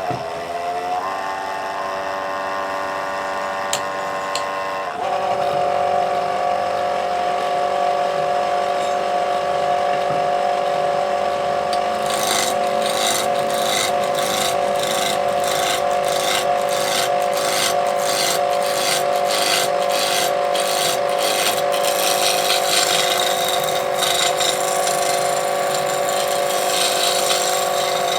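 Wood lathe running with a steady motor whine that rises in pitch as it comes up to speed about a second in. Later a turning tool cuts the spinning wood, first in regular hissing strokes about two a second, then in a continuous hiss.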